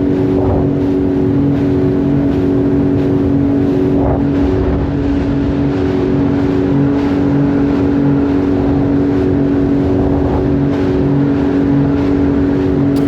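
Jet ski engine running at a steady cruising speed, an even drone that holds one pitch throughout.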